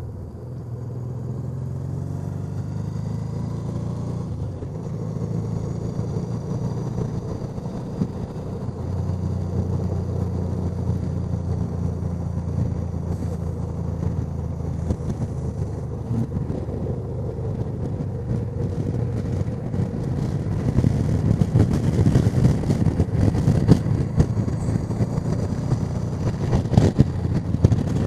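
Honda Deauville NT650V's V-twin engine running steadily under way, with wind noise over the helmet microphone that grows louder and rougher about two-thirds of the way through.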